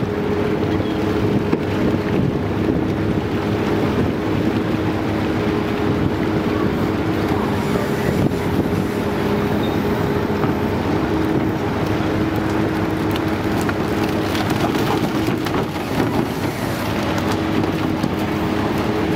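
Fishing boat's deck machinery running with a steady hum, with wind buffeting the microphone and a few scattered knocks from net handling.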